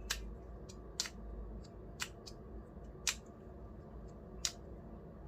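Five sharp clicks about a second apart: the DJI Action 2 lanyard's magnetic clasp snapping onto the small camera as its hold is tested.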